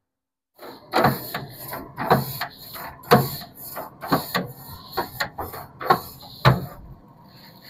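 Stainless-steel bristle grill brush scrubbing the cooking grates of a pellet grill: rhythmic scraping strokes, about one a second, stopping shortly before the end.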